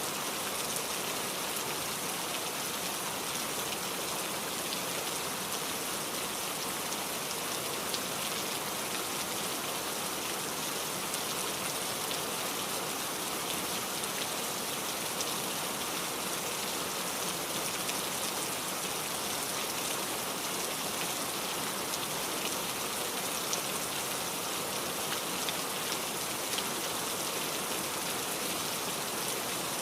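Steady rain falling, an even hiss of many small drops pattering on a surface, with no letting up.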